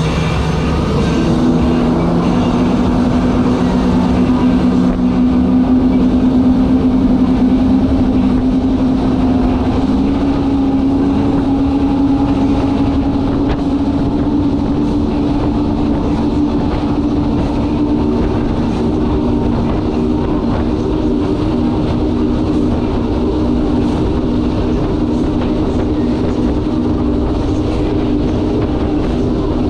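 Powerboat engines running hard in a steady, loud drone. Their pitch steps up about a second in and then holds.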